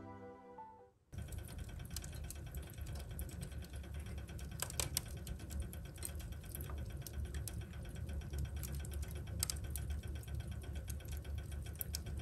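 Wood stove fire: glowing embers crackling and popping irregularly over a steady low rumble, starting about a second in.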